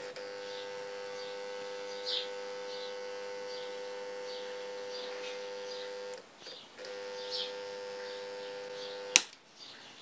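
Modified microwave-oven transformer driving a homemade copper-wire soldering iron: a steady electrical hum with faint crackles from the joint. The hum breaks off briefly about six seconds in and stops with a sharp click about nine seconds in. The transformer is at full power with the dimmer not turned down, and the copper wire tip burns through.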